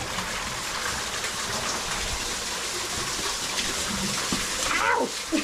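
Underground waterfall rushing and splashing over rock right at the microphone, a steady rush of falling water.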